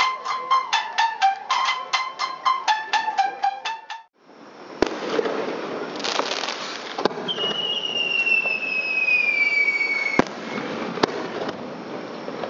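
Rapid plucked notes of Japanese folk music on a tsugaru shamisen break off about four seconds in. Fireworks follow: several sharp shell bursts over a crackling hiss, and a long, slowly falling whistle that ends in a bang.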